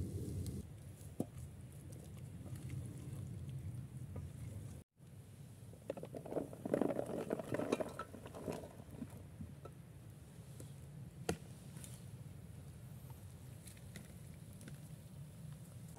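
Pre-chopped vegetables and potatoes tipped from a plastic tub into a metal cooking pot: a few seconds of clattering knocks and thuds, then a single sharp click a little later, over a low steady rush of background noise.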